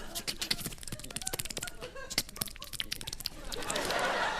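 A quick, irregular run of clicks and snips made by mouth into a microphone as improvised sound effects. Audience laughter rises near the end.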